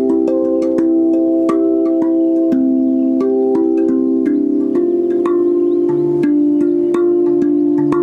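RAV Vast steel tongue drum played with the hands: a melody of quick finger strikes, several notes a second, each note ringing on and overlapping the next, with a lower bass note joining about six seconds in.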